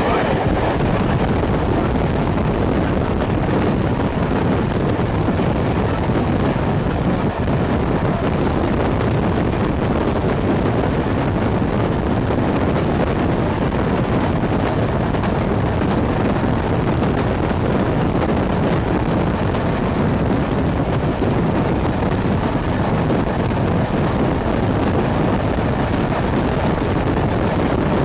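Steady rush of wind on the microphone held at the open window of a moving train, with the running noise of the train, hauled by an SU45 diesel locomotive, mixed in beneath. It comes in suddenly at the start and stays even throughout.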